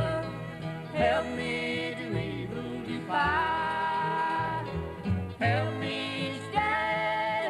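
Country gospel song: a singer sings the chorus over instrumental backing.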